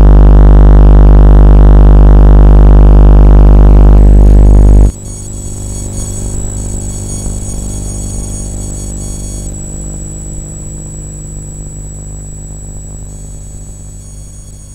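Electromagnetic field detector's audio output: a loud, deep electrical buzz of mains hum that cuts out abruptly about five seconds in. A quieter hum with a thin high whine follows and slowly fades.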